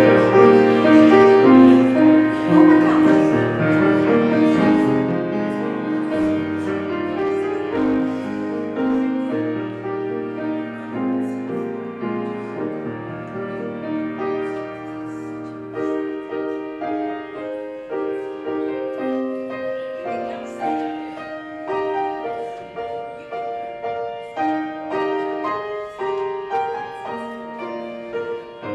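Slow, quiet solo piano music of sustained chords and melody notes, gradually growing softer.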